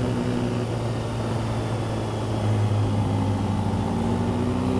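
Kawasaki Ninja ZX-6R 636 inline-four engine running steadily at low road speed, with wind noise. The engine note strengthens and rises slightly about halfway through.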